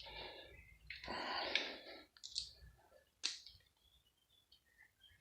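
Hand tools working screws out of a metal pump casing: a short scraping rustle about a second in, then a few sharp metallic clicks, going quiet in the second half.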